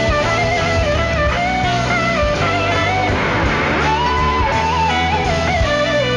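Rock band music led by electric guitar, the lead line sliding up and down between notes over a steady bass.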